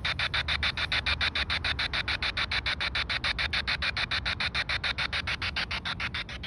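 P-SB7T spirit box sweeping through FM radio frequencies and played through a small Bluetooth speaker: white-noise static chopped into even pulses of about seven or eight a second as it jumps from station to station.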